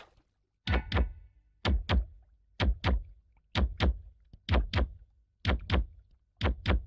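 Paired low thumps, two knocks a quarter second apart, repeating about once a second in a steady heartbeat-like rhythm, seven pairs in all, starting just under a second in after the music stops abruptly.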